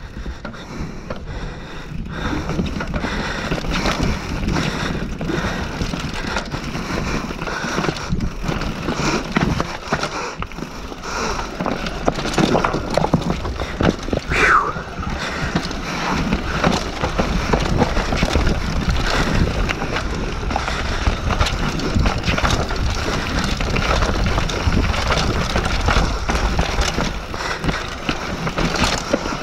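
Mountain bike descending a rough forest trail at speed: tyres rolling over dirt and rock with the bike rattling and knocking over bumps, under steady wind noise on the camera microphone. A brief high squeal about halfway through.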